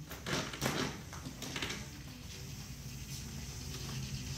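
Power wheelchair driving: a low steady motor hum, with a few soft knocks and rustles in the first second and a half and one more about three seconds in.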